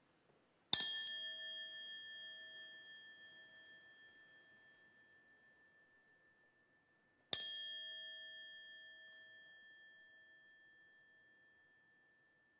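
A small brass bowl bell struck twice with a wooden stick, about six and a half seconds apart. Each strike rings on in a clear, steady, bell-like tone that slowly fades away.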